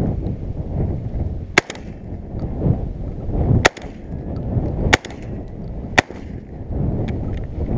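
Shotgun fired four times at uneven intervals, each shot a sharp crack, over a steady low background rumble.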